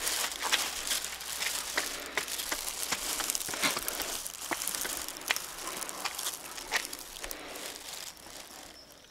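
Footsteps on a rough outdoor path, with crunching and irregular sharp ticks. They grow quieter near the end.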